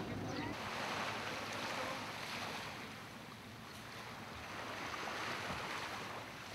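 Small waves washing up onto a sandy beach in slow surges that swell and ease every few seconds, with a little wind on the microphone.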